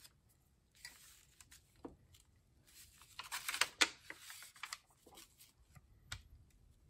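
Sheets of paper being handled and shifted over a comic book, a dry rustling in uneven spurts that is loudest a little past the middle, with a single light knock near the end.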